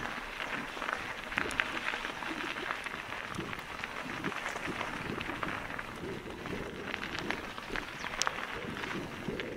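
Mountain bike tyres rolling over a wet gravel track: a steady crackle of grit and many small uneven clicks.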